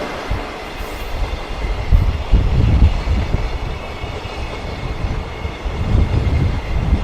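Freight train rolling slowly past at a wind speed restriction, with strong gusting wind rumbling and buffeting on the microphone.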